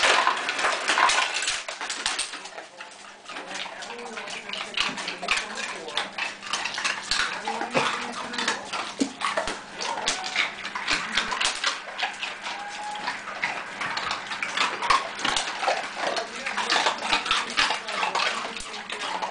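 Dogs eating ice cubes off a tile floor: dense, irregular crunching and clicking of ice and claws on tile. Near the start, ice cubes rattle out of a refrigerator door dispenser that one dog works with its paw.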